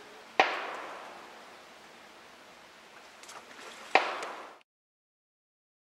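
Two gunshots about three and a half seconds apart, each followed by a long echoing tail over a steady outdoor background; the speaker takes them for someone's target practice.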